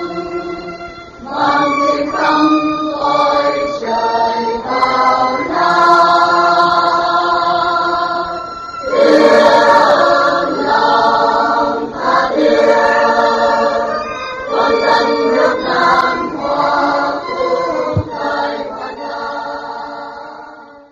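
Choir singing slow, held notes as background music, fading out at the end.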